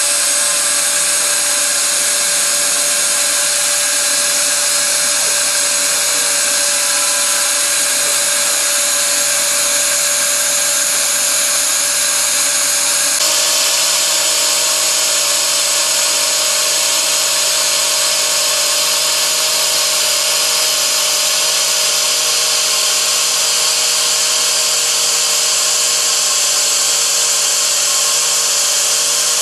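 The high-speed spindle motor of a small homebrew CNC milling machine, running with a steady high-pitched whine and hiss as its cutter mills a metal plate. The sound shifts slightly about 13 seconds in.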